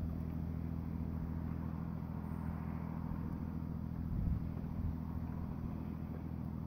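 Super Manta Ray 3900 series boat's engine running at steady speed, heard as a low, even drone.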